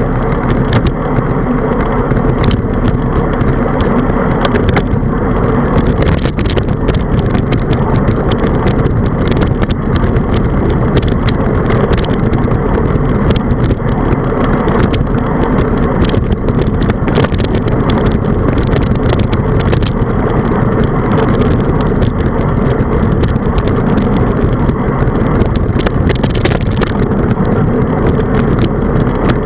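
Steady, muffled rush of wind and road noise picked up by a handlebar-mounted camera on a road bicycle riding on a rough rural road, with frequent small knocks and rattles as the bike goes over bumps.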